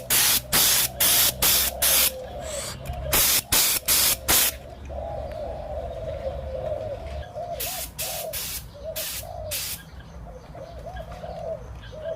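Spray paint being laid on in quick short bursts, about three a second, then pausing about halfway and resuming with a few more spaced bursts. Under it, spotted doves coo continuously.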